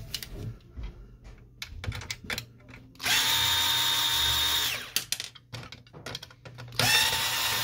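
Cordless drill/driver backing screws out of a laser printer's power board. It runs twice, each time with a steady whine: first for about two seconds in the middle, then again starting near the end. Before the first run there are scattered clicks and knocks of handling on the metal chassis.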